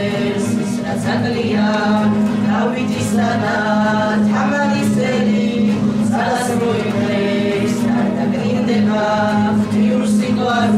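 A small group of voices singing a song to acoustic guitar accompaniment.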